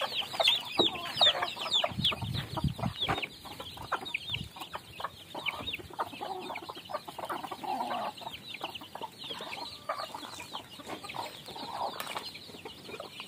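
Free-range native chickens: chicks peeping, many short, high, falling notes that thin out after about six seconds, with hens clucking now and then.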